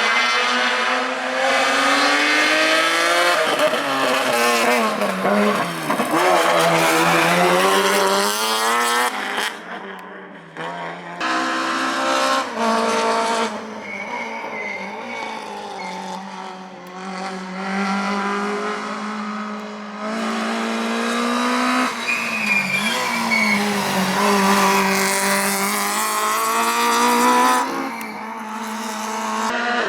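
Rally car engine at full competition revs, its pitch climbing and dropping repeatedly through gear changes and lifts, with a sharp drop around ten seconds in and again near the end.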